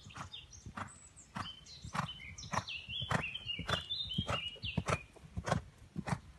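A horse's hooves striking the sand arena surface in a steady rhythm, about three beats a second, loudest in the middle as the horse passes close. Birds chirp and whistle over the hoofbeats.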